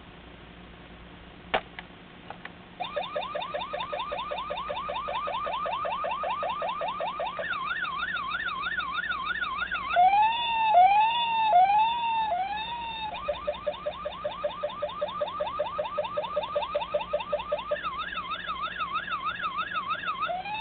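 A click, then a toy car's electronic siren-and-alarm sound effect played through its small built-in speaker. It cycles every few seconds through a fast repeating yelp, a quick up-down warble and a slower rising-and-falling wail, much like a multi-tone car alarm.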